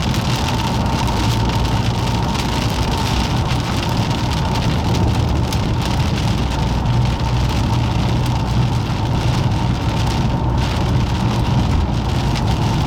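Steady rain falling during a thunderstorm, heard as a dense hiss of small drop impacts over a constant low rumble.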